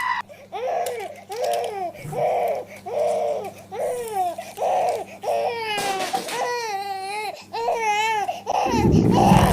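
A high voice crying in a string of short, repeated wails, about a dozen sobs, some of them wavering. A loud low rumble starts near the end.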